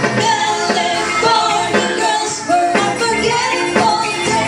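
Live band music: electric guitars and drums playing a song, with a voice singing over it.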